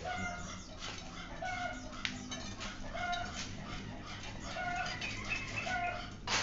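A domestic chicken clucking in short calls, repeated about every second and a half. A single sharp click sounds about two seconds in.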